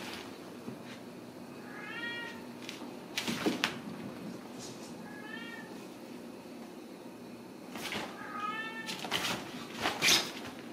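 Ragdoll kittens giving three short, high mews a few seconds apart, with scuffs and bumps of a collapsible fabric play cube being knocked about on the floor; the loudest bump comes near the end.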